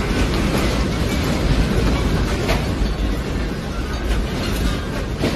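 Continuous rumbling and rattling of a shop's shelves and stock as the building shakes in an earthquake, with a sharper knock about halfway through.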